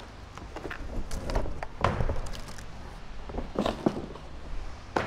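Cardboard packing panels being pulled off a steel lift frame and dropped onto a concrete floor: irregular scrapes, rustles and dull thuds, with a few sharper knocks about two seconds in, twice around three and a half to four seconds, and again near the end.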